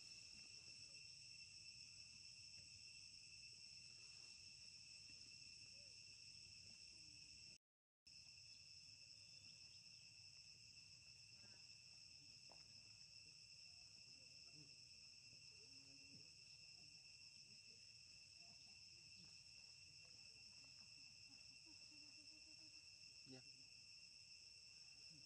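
Faint, steady high-pitched insect chorus, a continuous shrill drone at two or three pitches, with a brief dropout to silence about eight seconds in. A few faint soft rustles and ticks.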